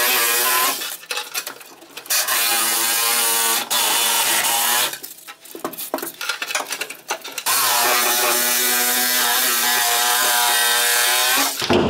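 Electric fillet knife running in three stretches, its reciprocating blades buzzing as they saw through lumps of expanding foam on a truck's floor pan. Short breaks with clicks and scraping come between the runs.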